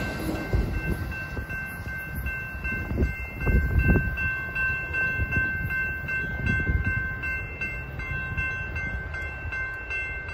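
Railroad crossing warning bell ringing in a steady, repeating ring while the crossing clears and the gate arms rise after the train has passed. Irregular low rumbling runs underneath, loudest a few seconds in.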